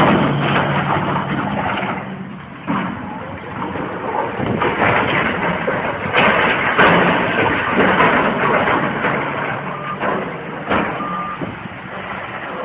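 A heavy vehicle's engine running under loud rattling, scraping noise, with a few sharp knocks, about three seconds, six seconds and eleven seconds in.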